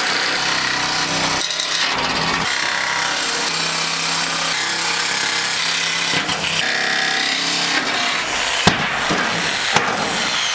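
Electric jigsaw cutting through a van's sheet-metal roof, sawing steadily around a rounded corner of a window opening, with two sharp knocks near the end.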